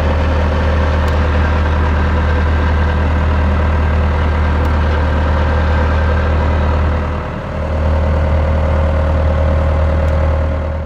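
A vehicle engine running steadily with a low, even hum, dipping briefly about seven seconds in and shutting off at the very end.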